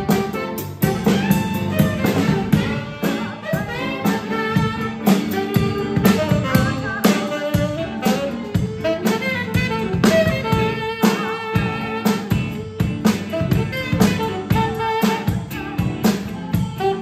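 Small live band playing: a saxophone carries the melody over a drum kit keeping a steady beat.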